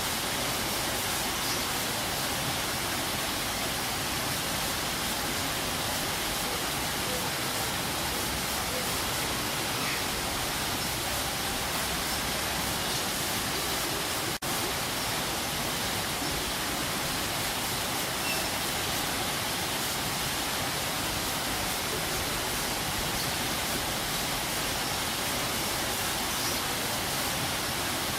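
Waterfall: a steady, even rush of falling water, broken by a momentary dropout about halfway through.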